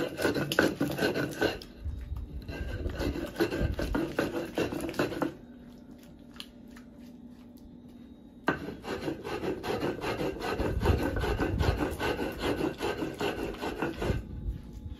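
Stone hand roller (mano) rubbed back and forth over a stone metate, grinding wet salsa verde ingredients: a rapid rasping scrape of stone on stone through the pulp. The grinding stops for about three seconds near the middle, then starts again.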